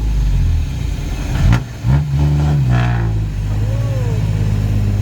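Heavy diesel engine revving and dropping back twice, with a sharp knock about one and a half seconds in, then running steadily.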